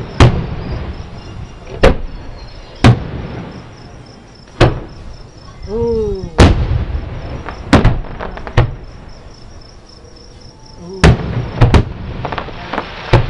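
Aerial firework shells bursting about a mile away: about a dozen sharp booms at uneven intervals, several coming in quick succession in the middle and again near the end. Crickets chirp steadily underneath.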